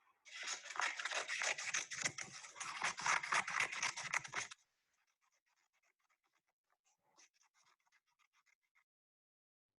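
Scissors cutting paper: quick repeated snips for about four seconds, then fainter snipping that dies away.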